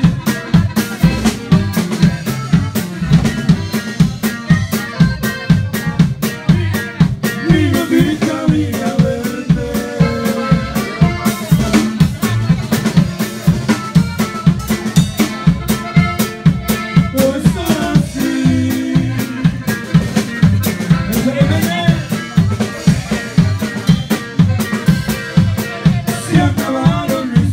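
Live dance band playing, with electric bass and a drum kit keeping a steady, quick beat under a melody.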